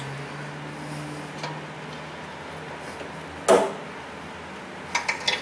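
Socket wrench on an O2 sensor socket snugging a new air-fuel ratio sensor into the exhaust: a few light clicks and one loud metallic clunk about three and a half seconds in, with a cluster of clicks near the end, over a steady low hum.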